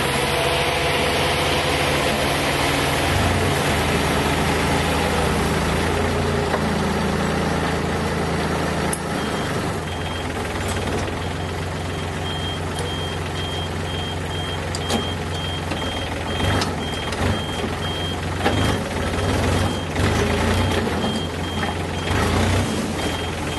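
Diesel engine of a Yanmar BV25 mini excavator running at work, with a reversing alarm starting to beep steadily about nine seconds in, and scattered clunks in the second half.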